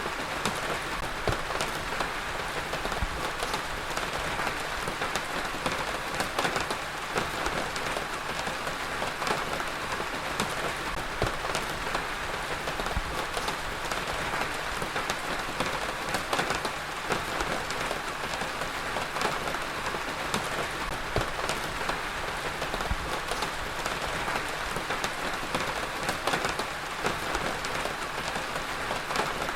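Heavy rain falling steadily, with a dense patter of individual drops striking a hard surface.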